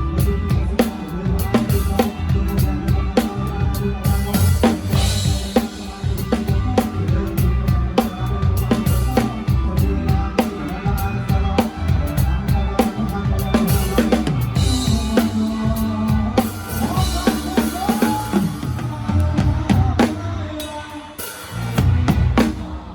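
Live band music with a drum kit up front: kick drum, snare and rimshots beating a steady rhythm over the other instruments. The playing thins out briefly near the end, then the full band comes back in.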